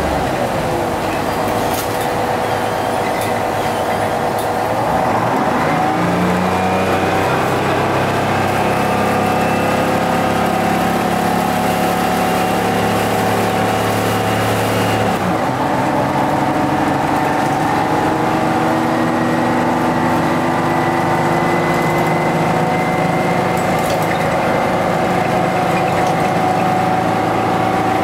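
GM TDH-5303 transit bus's two-stroke Detroit Diesel engine pulling under way. The pitch dips near the start, climbs steadily from about five seconds in, changes abruptly about halfway through as at a gear change, then climbs slowly again.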